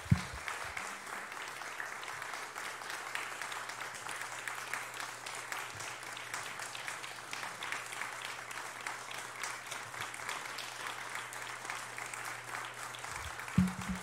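A congregation applauding steadily for a long stretch, a standing ovation, with a single loud thump at the very start.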